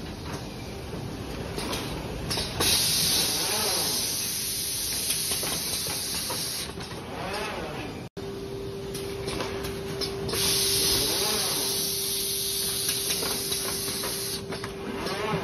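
Automatic SPC flooring packaging machine running, with a steady mechanical clatter of conveyors and carton-folding parts. Twice it gives a long hiss of compressed air lasting about four seconds, and a steady hum tone joins about halfway through.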